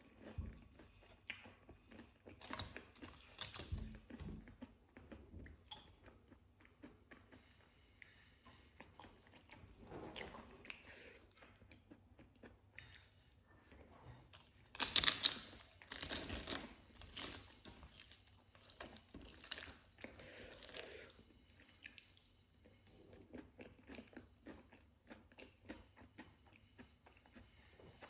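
Close-miked chewing of food, a run of wet chews and crunches. Several loud, crisp crunchy bites come about halfway through, with softer chewing either side.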